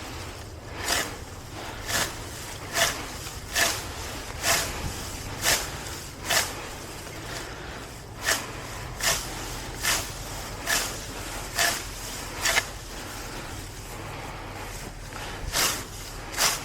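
Grass and weeds being pulled out of the ground by hand, each pull a short sharp tearing rip, about one a second, with a pause of a few seconds near the end.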